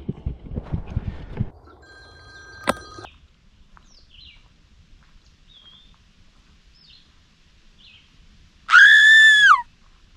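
A few knocks in the first second and a half, then faint scattered bird chirps. Near the end comes a loud, clear whistle about a second long, holding its pitch and then dropping as it ends.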